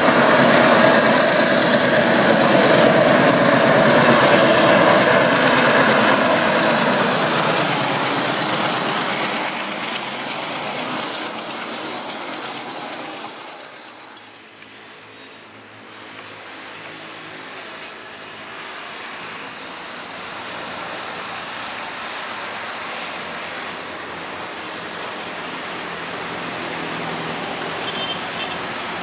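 An ALCo diesel locomotive hauling passenger coaches runs past, engine and wheels on the rails loud at first and slowly fading. It drops off sharply about halfway through, and a quieter, steady low train rumble follows.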